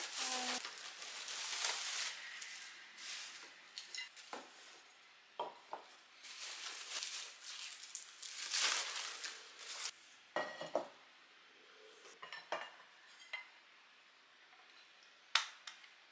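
Plastic bubble wrap rustling and crinkling as cookware is pulled out of a cardboard box, with a series of sharp clinks and knocks as pots, a glass lid and a large pan are handled and set down. The sharpest knock comes near the end.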